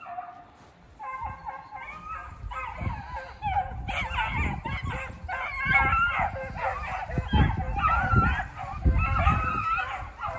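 Beagles baying while running a snowshoe hare, several hound voices overlapping. The baying builds about a second in and grows louder from about four seconds in, with low thumps underneath.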